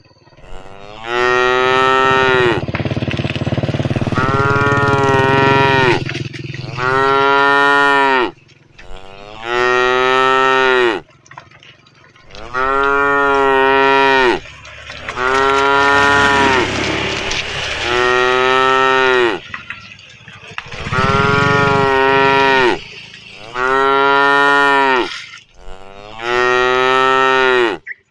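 Cattle mooing over and over, about a dozen long calls each lasting a second or two with short pauses between. Under some of the calls a second, lower moo overlaps.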